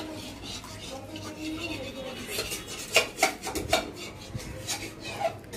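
Steel kitchen pots and utensils clinking and scraping as they are handled, with a couple of sharper metal knocks about three seconds in.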